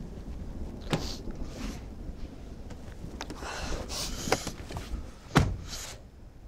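A few irregular footsteps and scuffs with short breathy sniffs, over a steady low rumble of outdoor background noise. The loudest step or knock comes about five seconds in.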